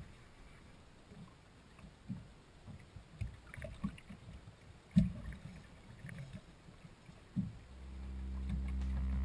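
Sea water slapping against a small boat's hull in irregular low thuds, one much louder knock about halfway through.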